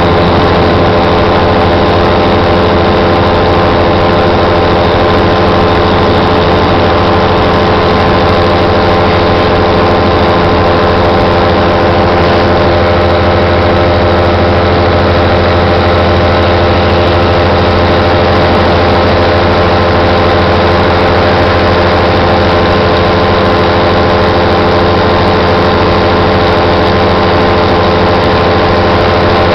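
Paramotor engine and propeller running at a steady, unchanging pitch in flight; loud throughout.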